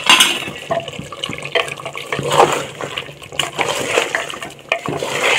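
A spatula stirring and turning fully cooked mutton with fried onions and garam masala through its wet gravy in a pressure cooker pot, with irregular scraping strokes against the metal.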